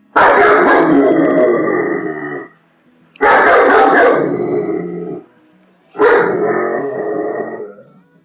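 German Shepherd dog barking in three bouts of about two seconds each, each starting suddenly, with faint background music in the gaps between them.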